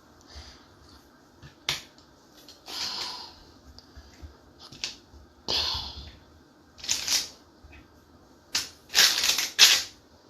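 Cooking handling noises as potato pieces go into a pot with chicken: a sharp click about two seconds in, then irregular short scrapes and rustles, a denser cluster of them near the end.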